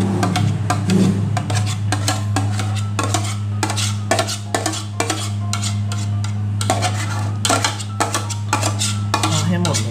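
A metal bowl clinking and scraping over and over as a thick coconut-milk ice-cream mixture is poured out of it into a plastic container, with a steady low hum underneath.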